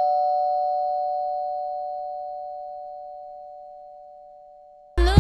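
A two-tone doorbell chime ringing out after its ding-dong, the two notes fading slowly and evenly over about five seconds. Music with a beat cuts in near the end.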